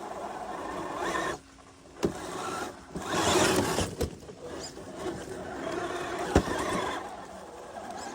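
Redcat Gen8 RC rock crawler driving over rough ground, its small electric motor and drivetrain running unevenly with a short stop about a second and a half in and the loudest stretch past the middle, with a few clicks.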